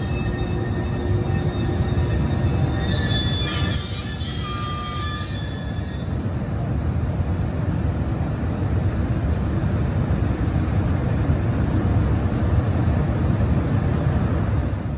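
EH200 twin-section electric locomotive rolling slowly over yard tracks and points with a steady wheel rumble. High-pitched wheel squeal rides over it until about six seconds in, then stops while the rumble goes on.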